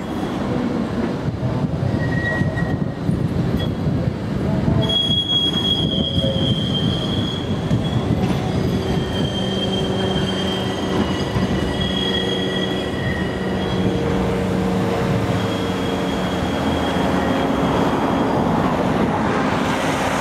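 Blackpool Balloon double-deck tram running on street track, its wheels squealing on the curved rails in long high-pitched squeals from about five seconds in, over a steady rumble.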